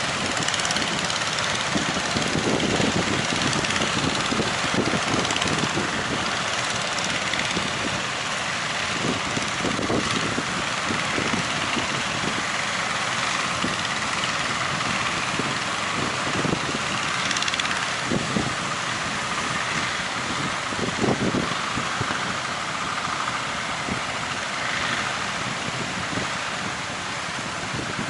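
Strong wind buffeting the microphone in irregular low gusts, over a steady rushing noise.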